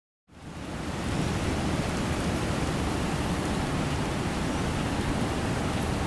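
Steady rushing water noise, fading in over about the first second and then holding level, with a strong low rumble.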